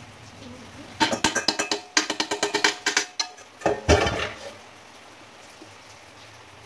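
Wooden chopsticks clattering against a nonstick frying pan and the rice cakes in it as they are stirred: a quick run of clicks lasting about two seconds, one louder knock, then quiet.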